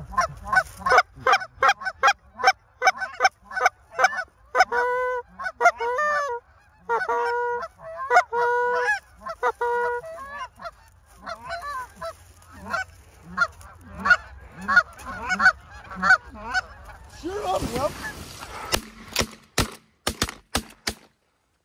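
A flock of Canada geese honking in rapid, overlapping calls as they come in to land. Near the end there is a short burst of rustling, then a few sharp cracks.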